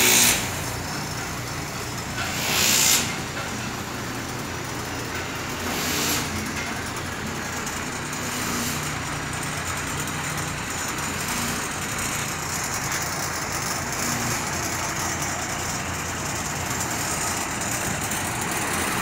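Heavy truck's diesel engine idling steadily, with three short loud hisses in the first six seconds.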